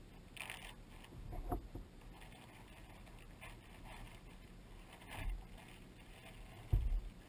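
Kayak paddling on choppy lake water: paddle splashes and small waves slapping the hull, about four times, with dull thumps against the hull, the loudest near the end.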